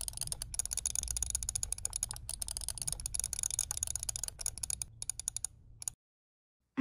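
Rapid, dense clicking of a computer keyboard and mouse during PCB layout work, over a low steady hum. It cuts off suddenly about six seconds in.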